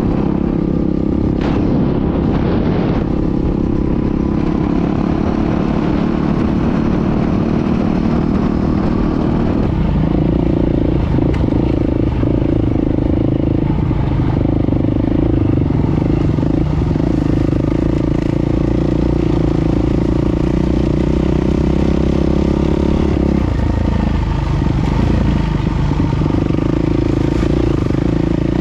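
Yamaha WR450F's single-cylinder four-stroke engine running while the bike is ridden, heard close up from the rider's position. It runs steadily, and the engine note shifts with the throttle about ten seconds in and again a few seconds before the end.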